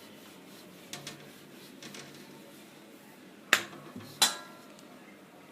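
Two sharp clacks, less than a second apart, of kitchen utensils knocked against a hard surface while dough is being rolled out, with a lighter click before them.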